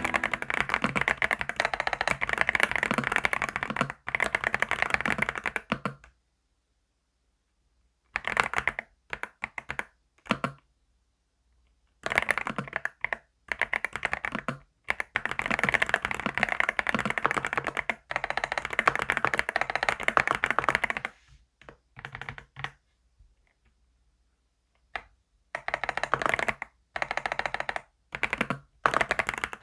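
Rapid typing on a keyboard, in runs of several seconds broken by pauses of silence, the longest about six seconds in.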